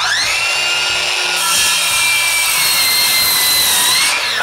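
Ryobi P508 18V brushless 7-1/4 in. circular saw with its stock 24-tooth blade cutting through a framing 2x4. The motor whines up to speed and the sawing noise grows louder about a second and a half in as the blade works through the wood. Near the end the pitch rises briefly, then the whine falls away as the blade spins down.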